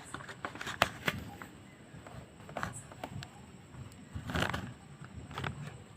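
Light, scattered clicks and small scraping sounds of hand work on a Pulsar motorcycle horn as its tuning screw is loosened slightly to adjust the horn's sharpness. The horn itself does not sound.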